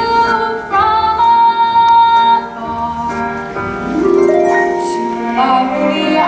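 A girl singing a solo ballad in long, held notes over soft instrumental accompaniment.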